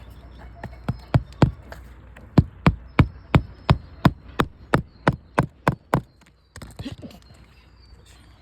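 Hand hammer striking in a quick steady run, about three blows a second for some five seconds, then stopping, with a few lighter knocks after.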